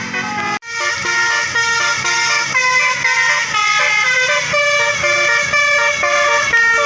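A bus's Basuri telolet horn, a multi-tone air horn, playing a tune of short held notes. The sound cuts out sharply about half a second in, then the tune carries on.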